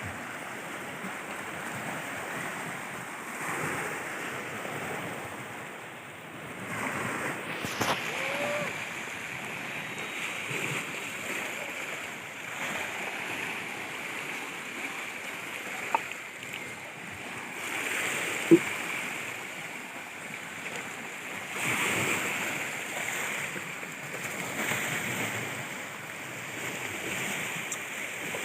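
Sea waves washing in, the noise swelling and easing every few seconds. Two sharp knocks or clicks come in the second half, the second one the loudest sound.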